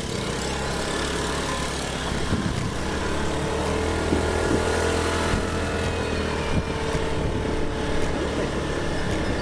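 A motor vehicle's engine running steadily while travelling, with road and wind noise.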